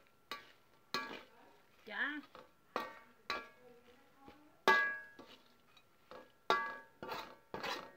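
Metal spatula knocking and scraping against a metal pan while stirring fried crickets with lime leaves and chillies: about eight sharp clanks, each ringing briefly.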